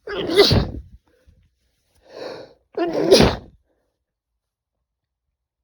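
A man sneezing twice: one sneeze at the start and a second about three seconds later, preceded by a short intake of breath. The sneezes are set off by chhinkni, a Nepali herbal sneezing powder, sniffed up the nose.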